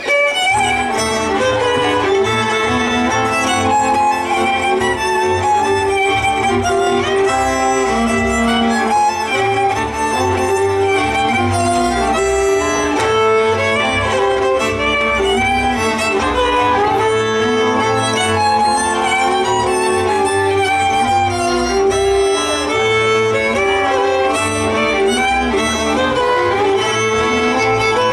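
Hungarian folk string-band dance music from Szatmár, a fiddle leading the tune over a steady pulsing bass accompaniment. The bass comes in right at the start.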